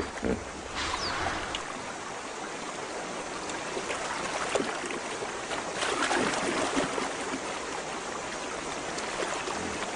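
River water splashing and sloshing as a hippopotamus moves through it, with louder splashes about a second in and again about six seconds in.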